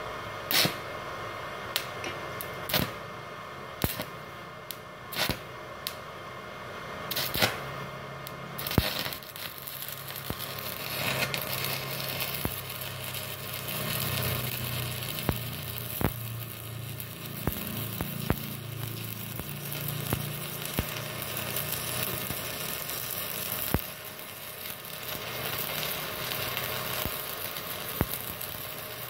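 Stick-welding arc from a 2.6 mm electrode on a small 450-watt Multipro INA 125A IGBT inverter welder. A run of sharp cracks over the first eight seconds or so as the rod is struck, then the arc catches and crackles steadily to the end. The 2.6 mm rod still lights and runs well on this low-wattage machine.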